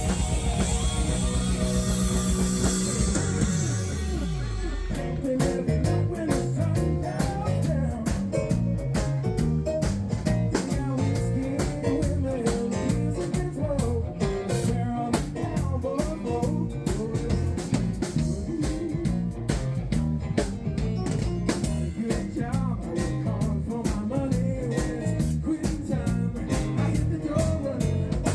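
A rock band playing, with electric guitar, drum kit and singing. About five seconds in, the music changes abruptly to a busier drum beat.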